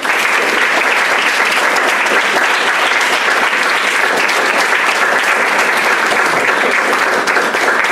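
An audience applauding: loud, steady clapping from many hands.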